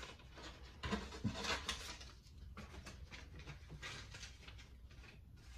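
Rustling and crinkling of packaging and cardboard as items are handled inside a shipping box, busiest about a second in, then lighter, scattered rustles.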